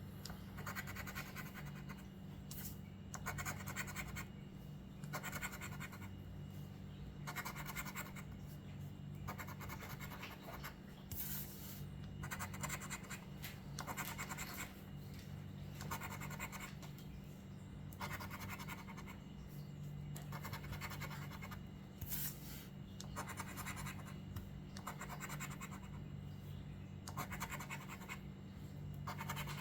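Scratch-off lottery ticket being scraped, the coating rubbed off in short repeated strokes about once a second, over a steady low hum.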